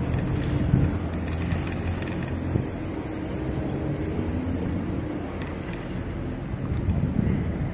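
Riding noise from a moving electric bicycle: a steady rumble of wind on the microphone and tyres on the pavement, with a few light clicks near the end.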